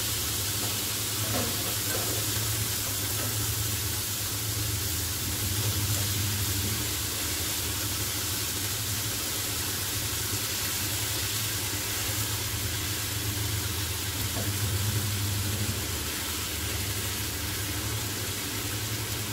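Chicken sizzling steadily as it sautés in oil in a frying pan, with boiled spaghetti being added and stirred in. A steady low hum runs underneath.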